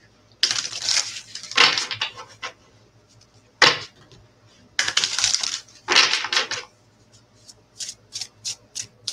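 A deck of Christ Consciousness oracle cards being shuffled by hand: several rustling shuffles, then a quick run of light card clicks near the end as the cards are worked.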